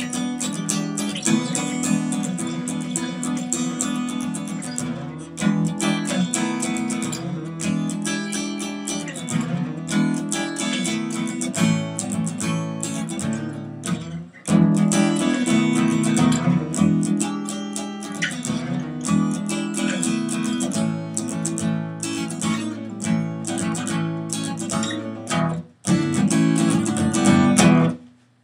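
Guitar, most likely acoustic, strummed in an improvised jam tune. It breaks off briefly about halfway and again near the end, then stops suddenly.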